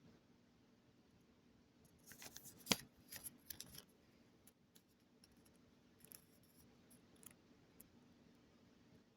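Quiet handling noises: a cluster of short rustles and clicks about two to four seconds in, with one sharp click among them, then a few scattered small ticks over a faint room hum.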